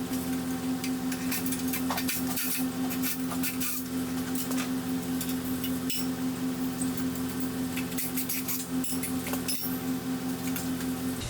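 A steady machine hum, with frequent light metal clinks and scrapes over it, that cuts off suddenly at the end.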